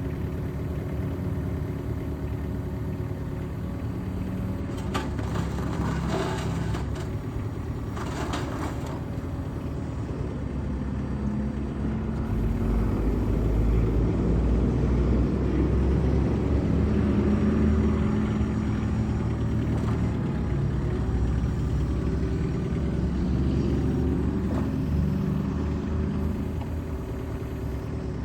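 Mitsubishi S4L-E1 four-cylinder diesel engine of a mini excavator running steadily, with a few metallic clanks in the first ten seconds. It gets louder from about twelve seconds in.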